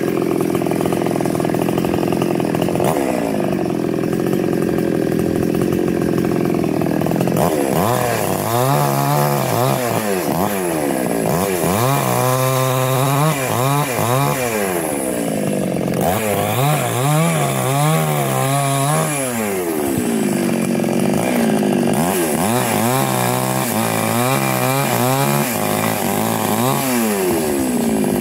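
Small chainsaw running high up in a mango tree, cutting a branch. It runs at a steady speed for the first several seconds, then from about eight seconds in it is revved up and down again and again.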